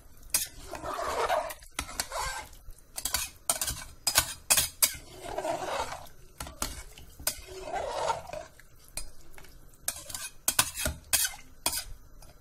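A metal spoon stirring rice, sprouted beans and water in a steel pressure cooker. Swishing sloshes alternate with many sharp clinks and knocks of the spoon against the pot.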